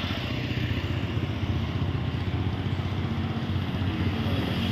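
Motorcycle engine running steadily with a rapid, even pulse.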